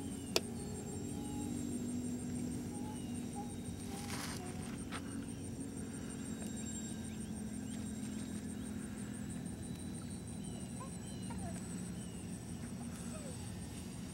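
Twin motors of a radio-controlled PBY Catalina model in flight: a steady drone at even throttle, with short high chirps scattered throughout and one sharp click about half a second in.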